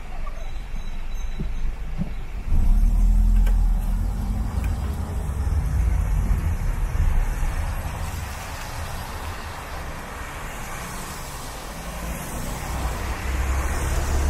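City road traffic on a wet street: vehicle engines running under a steady hiss of tyres on the wet road. A heavy, deep engine rumble comes in sharply about two and a half seconds in and slowly eases off, and the tyre hiss swells again near the end.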